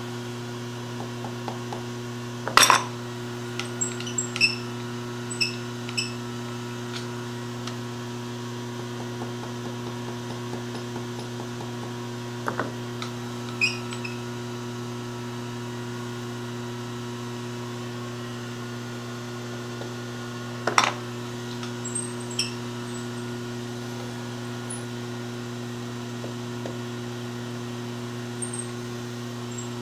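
Steady shop hum with a few sharp metal-on-metal taps: a small hammer tapping the vise body over to bring it into line while it is indicated in. The two loudest knocks come about three seconds in and again about twenty seconds in, with lighter ticks between.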